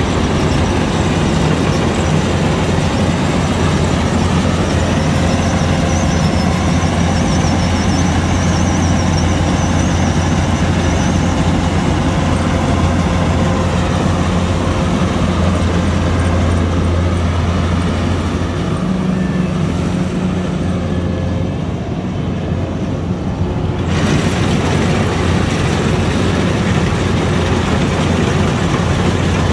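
Kubota DC-105X combine harvester's diesel engine and threshing gear running steadily under load while cutting rice: a deep continuous hum with a rushing mechanical noise over it. About two-thirds of the way through the sound turns duller for a few seconds, then snaps back to full.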